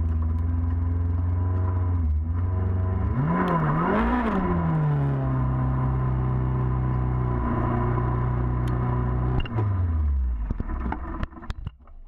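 Car engine running at a steady note, revved up and down twice a few seconds in, then holding steady before its pitch drops and it fades out near the end.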